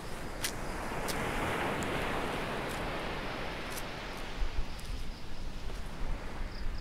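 Outdoor rushing noise that swells and fades over the first few seconds, with a faint steady high-pitched insect drone and a few short sharp clicks scattered through it; low rumble from wind on the microphone comes in about halfway.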